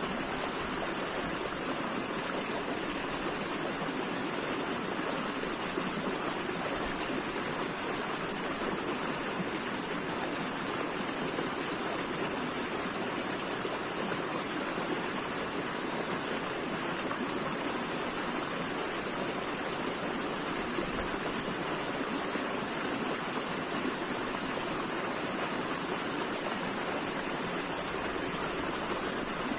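Running water flowing steadily: an even rushing hiss that holds without breaks or changes.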